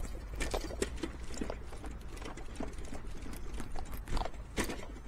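Irregular clicks and light knocks over a steady low rumble: bicycle riding noise picked up by a clip-on lavalier microphone on a leather jacket. There is a stronger pair of knocks about four seconds in.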